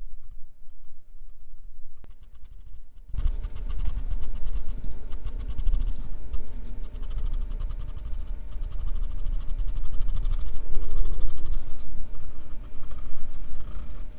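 Graphite pencil scratching on drawing paper in quick, repeated shading strokes, growing louder about three seconds in.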